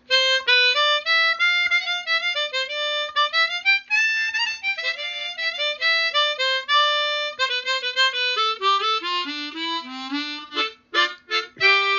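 Easttop T1040 10-hole chromatic harmonica played as a melody of single notes moving up and down, with a quick descending run near the end and then a few short notes. Its tuning is okay.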